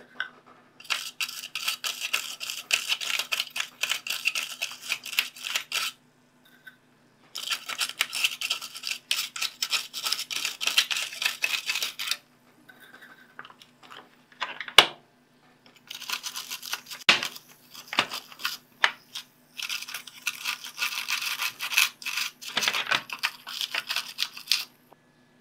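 Toothbrush bristles scrubbing vinegar onto the corroded metal spring contacts of a plastic battery compartment, neutralising alkaline battery leakage. Three long bouts of fast scratchy brushing with pauses between them and a few sharp taps in the middle.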